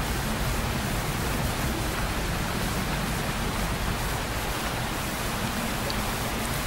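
Steady, even rushing noise with a low rumble underneath, unchanging throughout.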